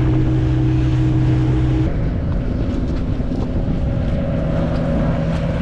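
A boat's engine running steadily, with wind noise on the microphone. The engine's tone changes abruptly about two seconds in.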